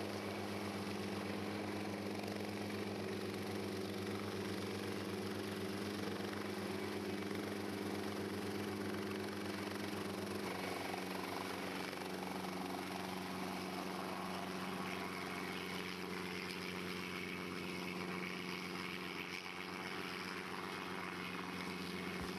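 Cessna 152's four-cylinder Lycoming O-235 piston engine running steadily, its note stepping slightly lower about ten seconds in.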